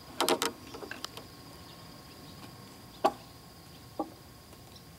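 Sharp wooden knocks as stacked cedar logs are shifted while being lashed with rope: a quick cluster of knocks near the start, a few small clicks, then single knocks about three and four seconds in.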